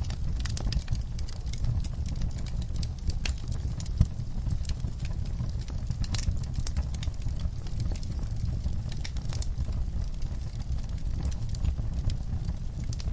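Wood fire crackling: irregular sharp pops and snaps over a steady low rumble, with one louder pop about four seconds in.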